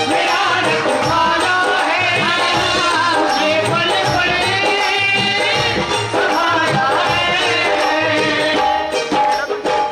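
Live Hindu devotional bhajan music: a bending melody line over a steady drum beat with shaker-like percussion.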